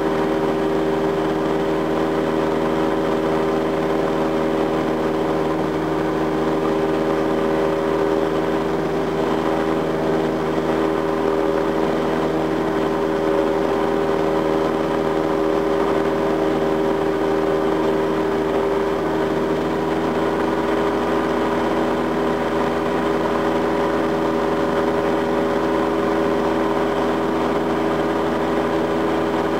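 Single-engine piston propeller plane's engine and propeller droning steadily in cruise, heard from inside the cockpit.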